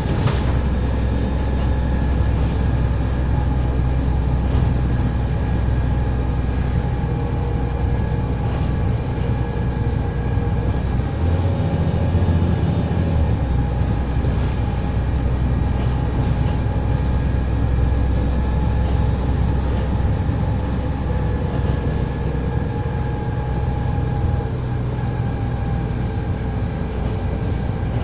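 Volvo B7TL double-decker bus running under way, a steady low engine and drivetrain drone with several faint steady tones above it. The engine note changes briefly about eleven seconds in.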